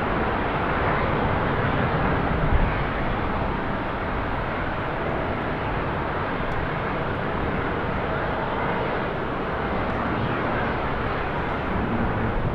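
Jet airliner engine noise, steady, mixed with gusty storm wind rumbling on the microphone. There is a brief thump about two and a half seconds in.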